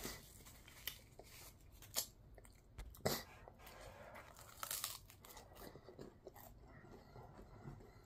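Close-up biting and chewing of a chicken wing: crunching crackles of the coating as teeth go in, with the loudest bite about three seconds in and a run of crunches near five seconds, then softer chewing.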